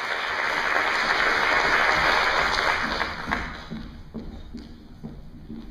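Audience applauding, strongest in the first three seconds, then dying away, with a few soft knocks as it fades.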